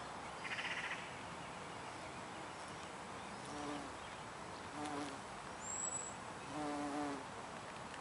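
Bumblebee buzzing in short bursts as it flies between lavender flowers, three times, the last one the longest. A brief high rattle comes about half a second in.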